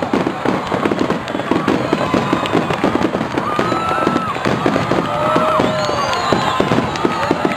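Fireworks finale barrage: many bangs and crackles in quick succession, overlapping with no pause.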